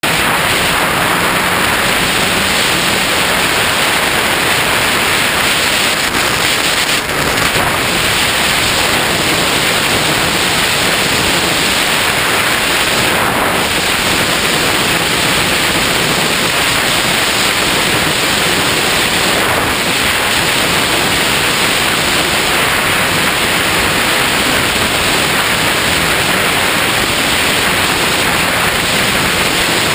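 Steady loud rush of wind over a GoPro camera riding on a flying Skywalker X5 RC plane, a constant hiss with no clear motor tone.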